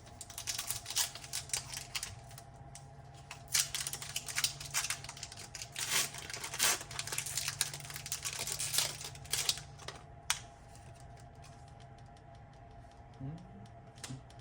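Foil Pokémon booster pack wrapper being torn open and handled, crinkling and crackling irregularly, then stopping about ten seconds in.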